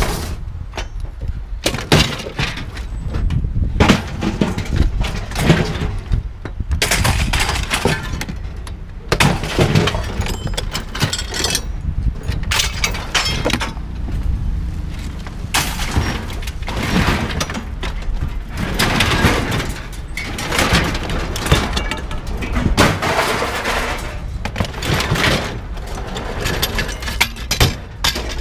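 Pieces of scrap metal and plastic thrown one after another onto a scrap pile, crashing and clattering at irregular intervals, over a steady low rumble.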